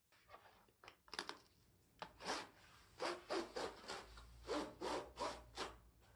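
Utility knife slicing through the edge of a corrugated cardboard box in a run of short scraping strokes, a few at first, then coming two or three a second from about two seconds in.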